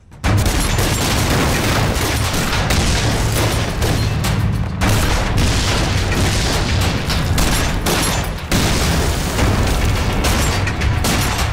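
Battle sound effects: artillery shells exploding one after another amid gunfire. The din starts abruptly and stays dense and unbroken.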